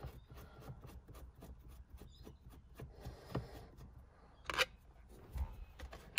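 Screwdriver turning a screw out of the back of a steering wheel: a run of small clicks and scrapes, with one short louder rasp about four and a half seconds in.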